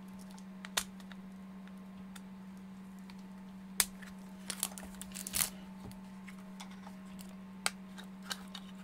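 Small plastic battery-pack case handled in the hands, giving a few sharp plastic clicks and taps. The loudest click comes about four seconds in, followed by a short cluster of small knocks. A steady low hum sits underneath.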